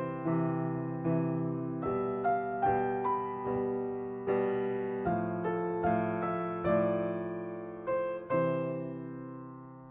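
Slow, soft piano music: single notes and chords struck every half second to a second, each dying away, with the last chord fading out near the end.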